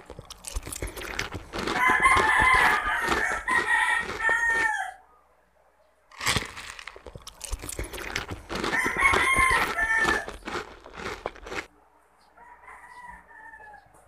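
A rooster crowing: two long loud crows, each falling in pitch at the end, then a fainter one near the end. Sharp clicks and smacks of close-up eating run alongside.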